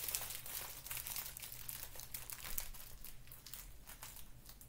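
Plastic mailing bag crinkling and crackling as it is pulled and picked at by hand, hard to tear open; the crinkles grow fainter near the end.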